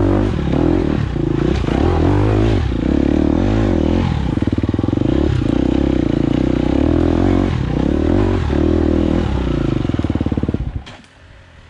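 Enduro dirt bike engine under load on a trail, its revs rising and falling over and over with the throttle. The engine sound stops abruptly near the end.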